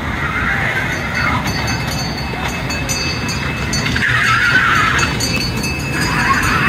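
Kiddie ride train running along its track with a steady low noise, amid outdoor fairground din, with bursts of higher hiss about four seconds in and near the end.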